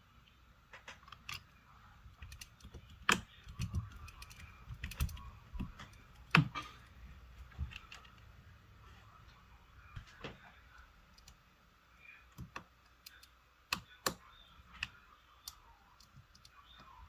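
Irregular small clicks and taps of tools and components on a smartphone being worked on, with two sharper snaps about three and six seconds in.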